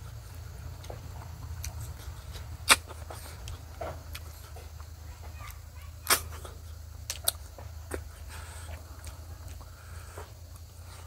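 A person eating with his hands: chewing and mouth sounds with a few sharp smacking clicks, over a steady low hum.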